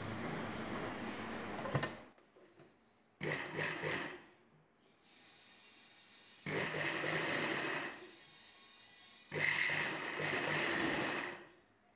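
Domestic sewing machine stitching in four short runs of one to two seconds each, stopping in between, as lace trim is sewn down onto blouse fabric.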